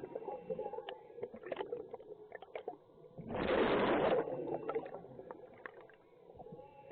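Underwater: a scuba diver's exhaled bubbles rushing from the regulator for about a second, starting about three seconds in, with faint bubbly clicks and gurgles around it.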